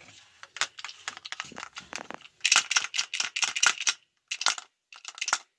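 A metal bolt clinking and rattling against the plastic inside a washing machine agitator as it is worked down toward the shaft: a run of quick clicks and taps, densest and loudest about halfway through, then a few separate clicks.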